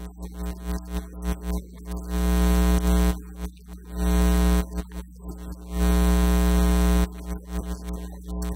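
Loud electrical mains hum and buzz on a church sound system: a steady low drone with a stack of higher buzzing tones. It swells three times to a flat, loud level lasting about a second each.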